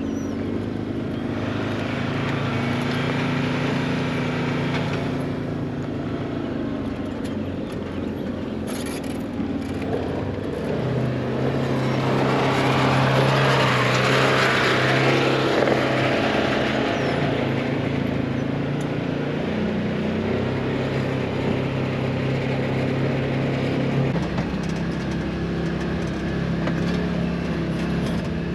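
Side-by-side UTV engine running as the machine drives, its engine note shifting up about eleven seconds in and back down later, with a louder rush of noise for a few seconds in the middle.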